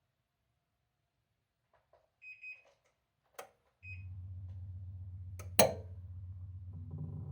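Daikin R28RMV air conditioner starting up for heating: two short electronic beeps and a click, then a steady low hum sets in. A loud sharp click about two seconds into the hum is the loudest sound, and more tones begin to build near the end as the unit starts to run.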